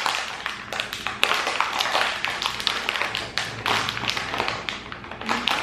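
Plastic snack bag crinkling and crackling continuously as it is twisted and pulled at its sealed top by hand in a struggle to tear it open.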